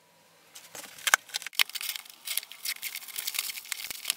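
A router's cardboard retail box and its packaging being opened and handled: rustling with many sharp clicks and taps, starting about half a second in.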